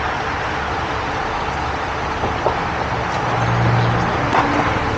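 Heavy tow truck's diesel engine running while its boom hydraulics lift, over a steady din of machinery. About three seconds in, a louder, steady low drone sets in, with a couple of faint knocks.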